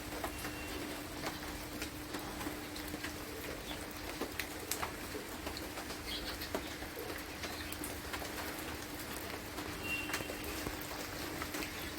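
Steady rain with scattered drips and taps, over a low steady hum, and a bird chirping briefly twice.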